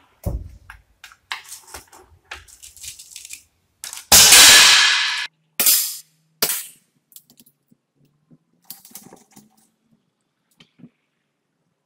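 Rifle handling clicks as a pellet is loaded, then one loud shot from a BRK Ghost PCP air rifle about four seconds in, ringing briefly in the range hall. Two sharp clacks follow, then a few faint clicks.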